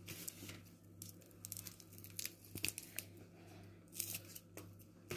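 Faint rustling and crackling of dry onion skins and newspaper as onion sets are handled and trimmed with scissors, with a few short sharp clicks, one of them a scissors snip about four seconds in.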